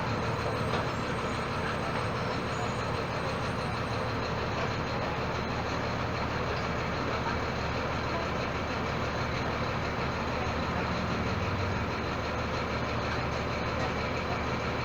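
Volkswagen Volksbus 17-230 EOD city bus with a Marcopolo Torino body running, a steady engine and road noise with no clear changes.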